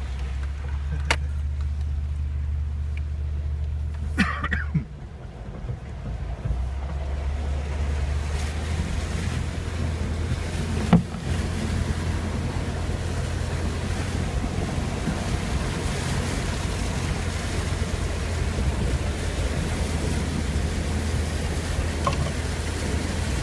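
Vehicle engine running at low speed, heard from inside the cab, as it drives through a shallow creek, with tyres splashing and a rush of water that builds after several seconds. A single sharp knock about eleven seconds in.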